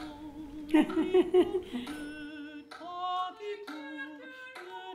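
Choral voices singing: a short phrase with sliding pitch about a second in, then several voices holding long notes together in harmony, phrase by phrase.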